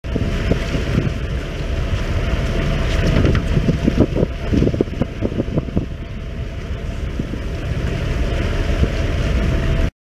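Wind buffeting the microphone aboard a sportfishing boat, over the low running of its engine and water washing along the hull. The gusts are strongest through the middle seconds, and the sound cuts off abruptly near the end.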